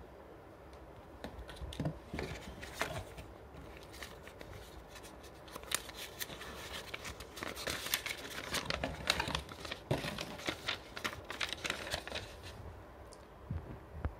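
Packaging of a new dry iron being unwrapped: irregular crinkling and tearing, busiest in the middle and dying away about a second and a half before the end.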